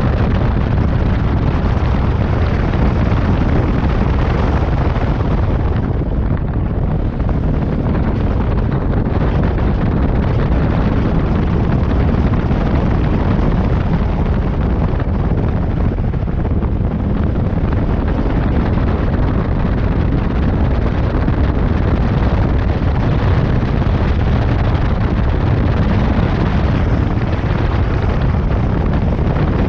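Loud, steady wind buffeting the microphone of a moving motorcycle, with the rush of the ride underneath and no distinct engine note.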